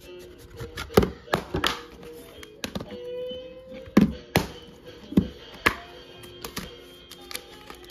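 Plastic 4K Ultra HD disc case being handled and opened: a series of sharp clicks and taps, about a dozen, loudest about one second and four seconds in. Music plays underneath.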